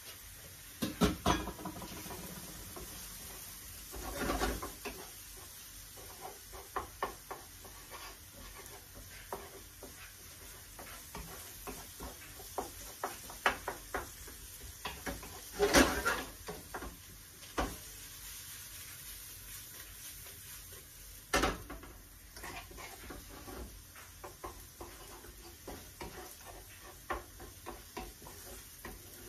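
Smoked salmon and onion frying in a pan with a steady sizzle, under the clicks and scrapes of a wooden spatula stirring against the pan. A few louder knocks of the spatula on the pan stand out.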